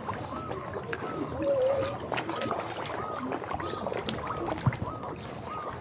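Water splashing and slapping at a pond surface as koi and birds feed, with short chirps repeating about twice a second.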